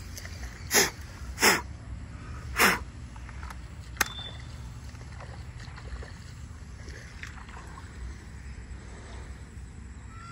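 Three short, loud rushes of air, like puffs of breath, in the first three seconds, then a single sharp click, over a steady low rumble.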